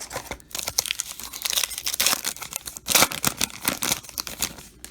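Trading card pack wrapper being torn open and crinkled: a dense run of papery crackling and ripping, loudest about three seconds in.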